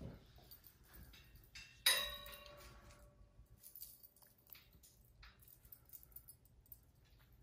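A sharp metallic clink with a short ringing tail about two seconds in, among soft rustling and light taps as bedding is arranged.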